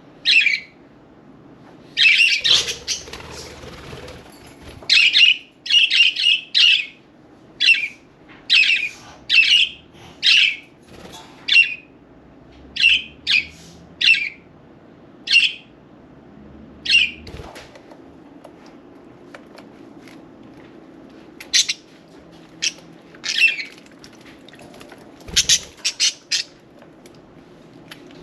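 Budgerigars making short, harsh squawks and chirps, one after another, denser in the first half and again near the end.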